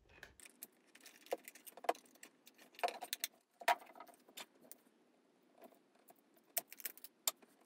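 Irregular light clicks and taps of hands handling a digital multimeter: its rubber holster is pulled off, then the 9 V battery and its snap connector are fiddled with at the back of the meter.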